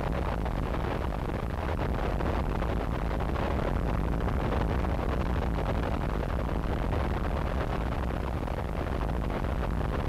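Harsh noise wall: a dense, unchanging wall of static-like noise with a heavy low end, played from a cassette, without breaks or changes.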